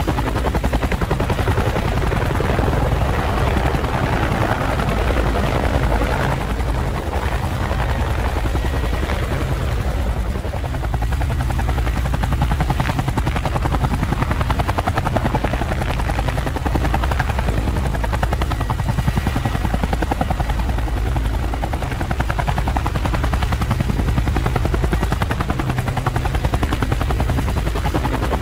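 Steady rotor whir of a rotary-wing aircraft, a dense low drone with a fast, even pulsing beat, dipping slightly about six seconds in.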